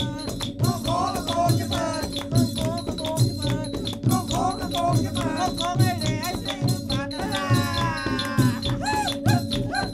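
Background music with a steady beat and busy rattling percussion under a melodic line.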